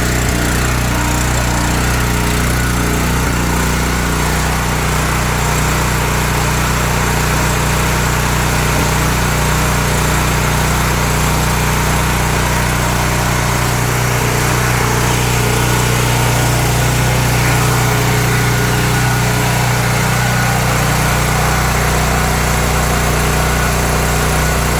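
Honda generator's engine running steadily just after a cold start that caught without choke.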